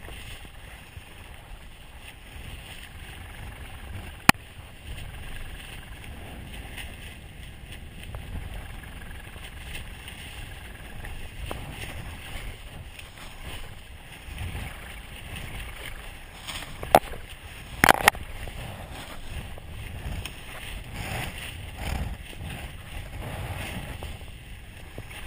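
Wind rushing over the microphone of a paraglider pilot coming down under a deployed reserve parachute, a steady low rumbling hiss. A sharp knock sounds about four seconds in and a few more come close together about two-thirds of the way through.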